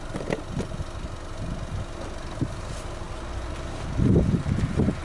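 Exhaust of a Subaru Legacy Outback 2.5i's EJ25 flat-four boxer engine idling steadily at the tailpipes, with a louder, uneven low rumble about four seconds in.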